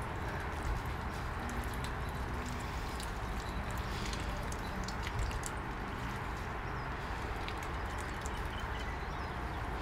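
Steady outdoor background noise with a few light water splashes and drips from geese bathing in a tub of water.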